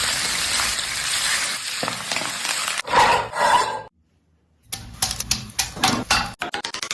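Food sizzling as it fries in a hot pan, with a utensil stirring and scraping against the pan. After a short break, clinking stirring strokes follow, and music with a quick regular beat begins near the end.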